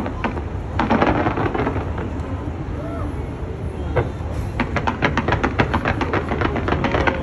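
Fireworks going off over a continuous low rumble, with sharp bangs and crackles that come in a rapid run in the second half, and crowd voices among them.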